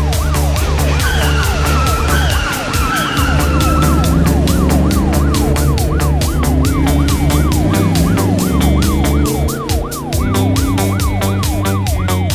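Police car siren sound effect sweeping rapidly up and down, over background music with a steady beat.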